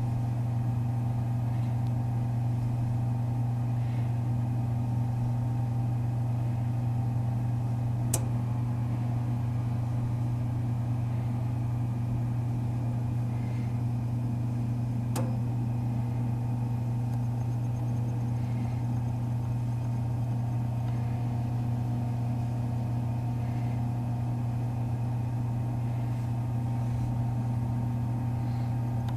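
Toaster oven running at about 375°F, a steady low electrical hum, with two sharp ticks about 8 and 15 seconds in.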